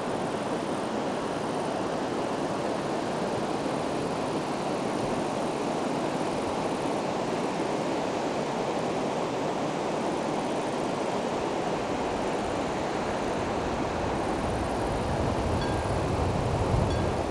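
Steady rushing of a flowing river current, with a low rumble swelling near the end.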